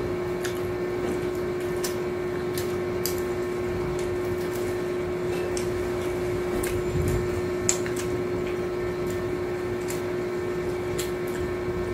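A steady machine hum on one pitch runs under scattered short clicks and crunches of people eating crisp hard-shell tacos and handling lettuce leaves.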